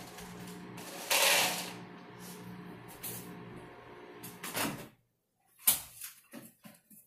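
Microwave oven running with a steady hum, with a brief loud rush of noise about a second in. The hum stops about five seconds in, followed by several short knocks and clicks.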